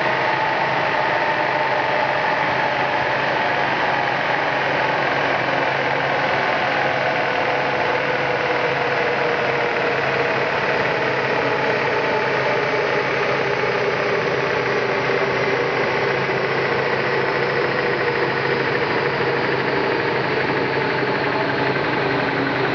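Renault Clio RS engine running with the car on a chassis dynamometer, a loud steady drone whose pitch slowly falls as the engine and rollers wind down.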